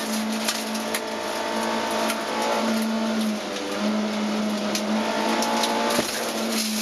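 Nissan Stanza rally car's engine running hard at high revs on a gravel stage, heard from inside the cabin; its steady note breaks off briefly about three and a half seconds in. Gravel clicks and rattles against the car throughout, with a single hard thump about six seconds in as the car hits a bump.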